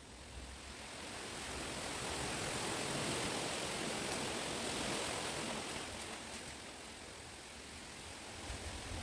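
Wind gusting through chestnut trees, a rushing of leaves and stems that swells over the first couple of seconds and eases off after about five seconds.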